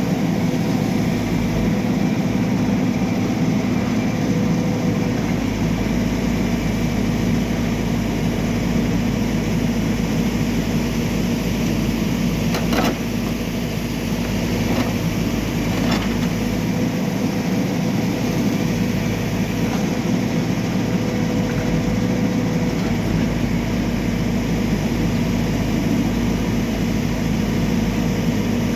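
Backhoe loader's diesel engine running steadily, with two short knocks about halfway through.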